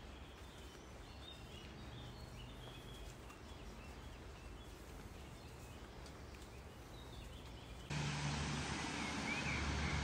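Quiet forest background with faint, scattered bird chirps; about eight seconds in it switches abruptly to a much louder, steady rush of falling water from a waterfall.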